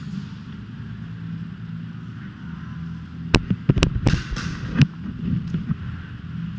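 A quick cluster of four or five sharp airsoft shots or cracks, about three seconds in and spread over a second and a half, over a steady low rumble.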